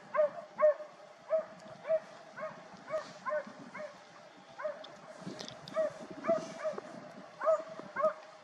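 Hunting dog baying at wild boar, barking over and over at about two barks a second.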